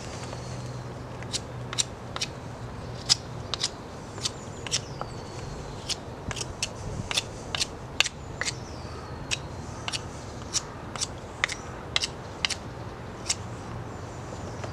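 Knife whittling a wooden stick: a run of short, crisp shaving strokes, irregular, about one or two a second, starting about a second in.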